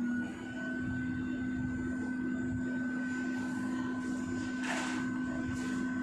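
Philips V200 ventilator running with a steady machine hum, and a short rush of air about three quarters of the way through.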